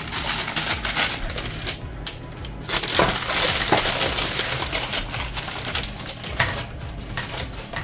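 Hot roasted red pepper pieces being picked off a baking tray by hand and dropped into a soup pot: a busy run of rustling, scraping and small clattering clicks, heaviest in the middle.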